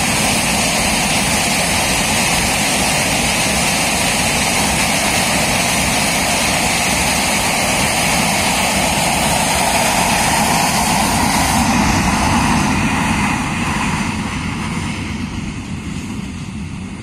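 Parabat Express passenger coaches running past on the track: a steady, loud noise of steel wheels on rail. It grows quieter over the last few seconds.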